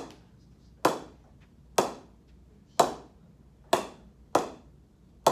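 Cricket ball bounced repeatedly off the face of a new English willow cricket bat, an SG Triple Crown Extreme: about six sharp knocks, roughly one a second. The ball is coming off the bat well, "flying".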